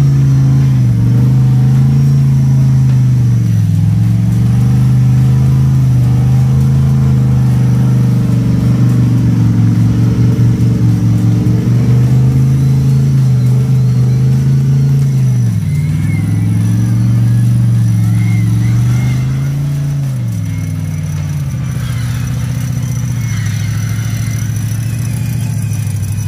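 Off-road competition truck's engine running loud at high revs, the revs dipping and picking back up a few times, then settling lower and quieter about twenty seconds in.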